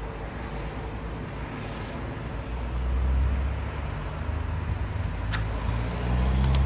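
Rescue helicopter flying away at a distance, a low rumble that swells about three seconds in and again near the end.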